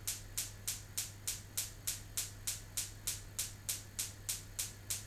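Gas oven's electric spark igniter clicking steadily, about three sharp, high-pitched clicks a second, as the oven burner is being lit. A low steady hum runs underneath.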